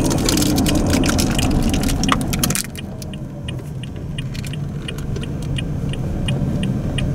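Inside a moving car: road noise with rattling clicks. After about two and a half seconds the noise drops and the turn-signal indicator ticks evenly, about four ticks a second, as the car makes a left turn.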